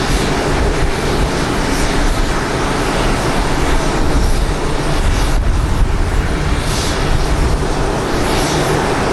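Boeing 787-9 jet engines running, a loud steady rumble with no breaks.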